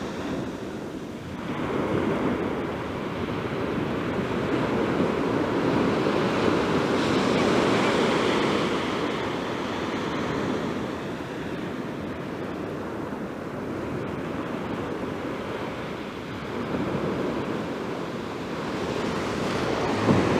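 North Sea waves breaking and washing up the beach at high tide, swelling to a peak about eight seconds in and again more faintly around seventeen seconds.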